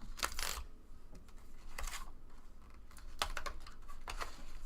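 A few short rustles and clicks, like items and packaging being handled and set down.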